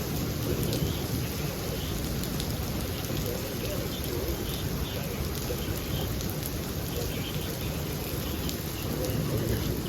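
Heavy rain in a severe thunderstorm: a steady wash of rain with a low rumble underneath and scattered sharp ticks of drops striking, swelling slightly near the end.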